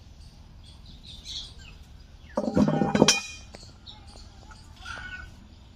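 Kitchen utensils being handled: about halfway through, a short clatter ends in one ringing metallic clink. Birds chirp faintly in the background.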